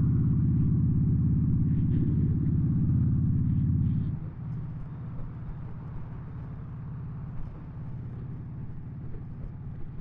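Motorcycle engine and exhaust running under way, a loud steady low engine note that drops sharply about four seconds in and carries on quieter.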